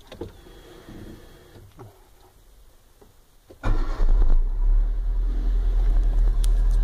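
A Chevrolet Celta's 1.0 four-cylinder engine starts suddenly about three and a half seconds in and settles into a steady idle, running with a freshly replaced water pump, timing belt and tensioner and without the belt noise it had before the repair.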